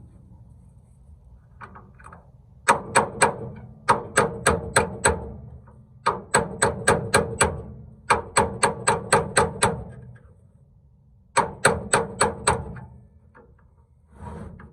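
Hammer tapping metal on metal in five quick runs of about five ringing strikes a second, driving the pin into the truck's steel tailgate hinge, which is fitted with a new brass sleeve.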